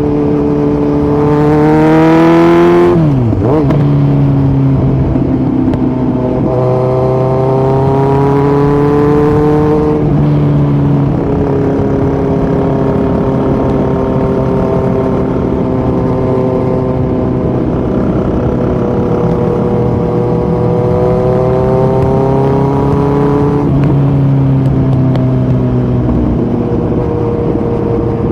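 2018 Kawasaki Z900's inline-four engine running loud through a Yoshimura muffler and Delkevic headers with no dB killer, under way. Its pitch climbs and then drops steeply about three seconds in, climbs again, steps down about ten seconds in, and steps down once more near the end.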